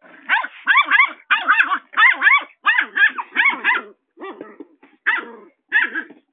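Puppy barking angrily at a cardboard box: a fast run of high-pitched yapping barks for about four seconds, then a few single barks spaced about a second apart.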